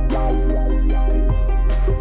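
Electronic background music with a steady beat of drum hits over held bass notes.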